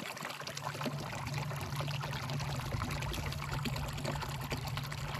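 Small, shallow woodland stream trickling and splashing over rocks and leaves: a steady babble of water with many tiny droplet ticks.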